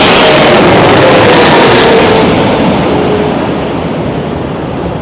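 Jet airliner passing low overhead, a loud engine roar with a faint whine that slides down in pitch, fading away over the last couple of seconds.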